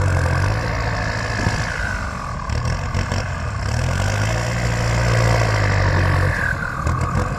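Kubota M6240 tractor's diesel engine running steadily, its pitch wavering slightly.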